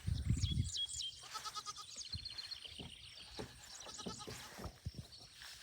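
Goats bleating, with birds singing in the background and scattered short knocks.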